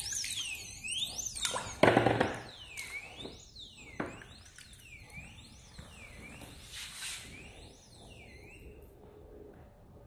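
Motorcycle alarm disc lock's siren sounding in repeated rising-and-falling sweeps while the lock is wet from immersion, still working after being under water. A loud splash about two seconds in and another about four seconds in as it goes back into the water; the siren stops about a second before the end.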